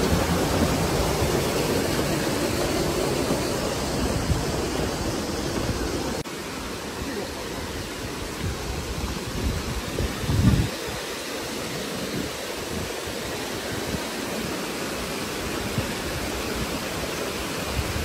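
Small waterfall rushing over mossy rocks: a steady, even hiss of falling water that steps down in level about six seconds in. A brief low thump comes about ten seconds in.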